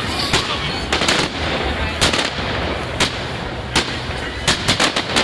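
Fireworks display: sharp bangs about once a second, quickening to several in rapid succession near the end, over a steady noisy background.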